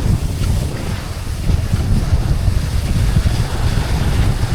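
Wind buffeting the microphone: a heavy, uneven low rumble with a steady hiss above it.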